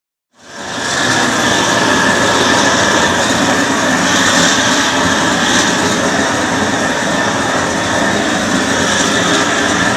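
Gas torch burning with a steady rushing noise, the flame heating a copper boiler for silver soldering. It starts abruptly about a third of a second in and then holds even.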